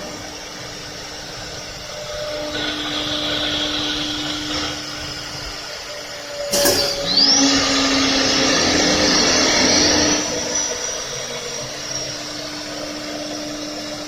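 Multi-head CNC wood router running, with a steady hum and a high whine. About six and a half seconds in there is a sharp click, then a rising whine as a spindle speeds up, and the machine runs louder for a few seconds before settling back.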